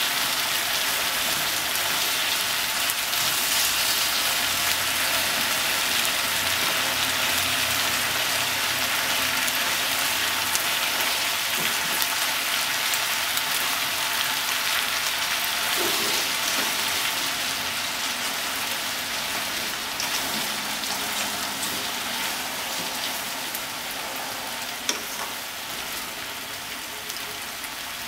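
Sliced pork, potatoes, onion and carrot sizzling as they stir-fry in a pot, turned over with chopsticks. The sizzle is steady and eases somewhat in the second half.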